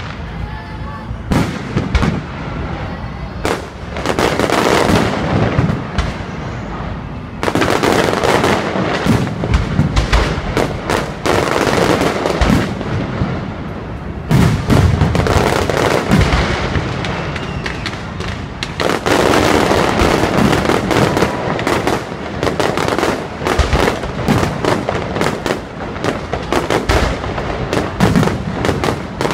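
Aerial fireworks display: a rapid, continuous run of shell bursts, with loud bangs several a second and dense crackling between them.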